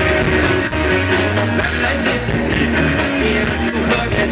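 Live rock band playing an instrumental passage: electric guitars strummed over bass and drums, loud and steady.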